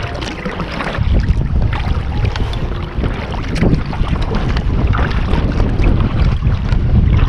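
Wind buffeting the microphone in a loud low rumble, with scattered splashes and slaps of choppy water around a paddled kayak.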